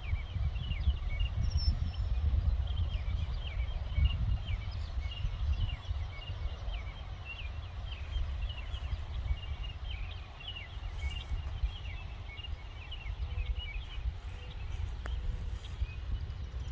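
Wind rumbling on the microphone, with many small birds chirping. The chirping is busy for the first ten seconds or so, then thins out.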